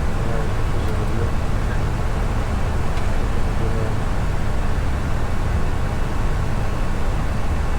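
Steady flight-deck noise of an Airbus A320 in flight: an even rush of airflow and engine noise from its CFM56-5B4 engines, heaviest in the low end.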